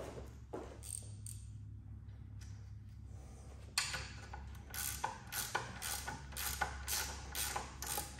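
Ratchet wrench clicking on the rear axle nut of a fat-tire e-bike. After a few faint clicks, a quick run of ratchet strokes starts about four seconds in, roughly two to three a second.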